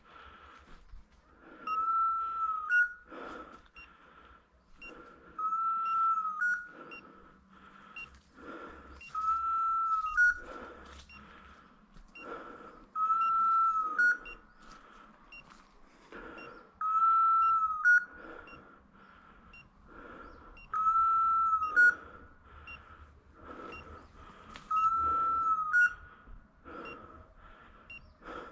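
A hunting dog's electronic beeper collar sounding a steady one-second tone that ends in a short higher blip, seven times at even intervals of about four seconds. Footsteps rustle through dry leaf litter and brush between the beeps.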